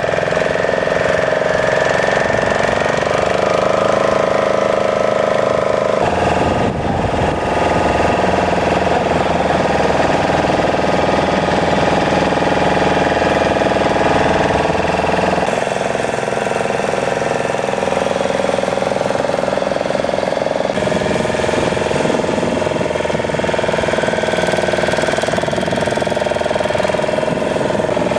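Motorboat engines running steadily, their pitch and mix changing abruptly a few times.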